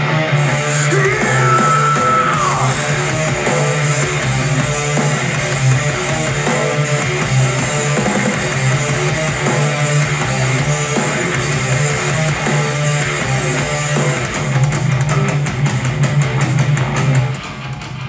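Guitar-driven rock song played at maximum volume through a Google Home Max smart speaker, measuring about 95 dB on the meter. Near the end the level drops as the quieter Apple HomePod takes over the same track.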